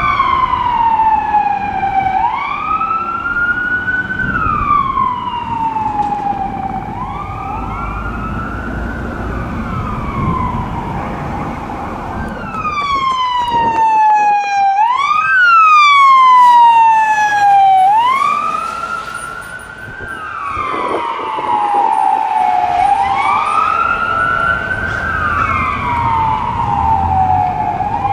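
Fire engine siren wailing in repeating cycles, each a quick rise in pitch and a slower fall, every two to three seconds. The truck's engine and traffic rumble low underneath.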